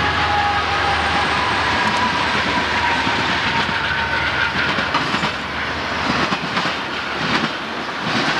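Conrail diesel freight locomotives pass close by. Their engine drone and a whine slide down in pitch and fade over the first few seconds. Then the wheels of the passing intermodal flatcars click and knock over the rail joints.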